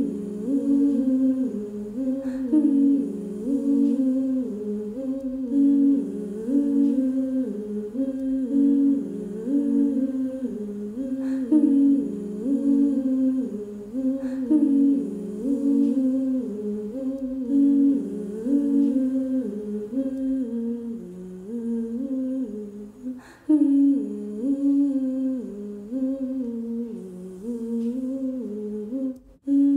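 A woman humming a simple wordless tune on the soundtrack, one short phrase repeated over and over; the humming breaks off briefly about three quarters of the way through.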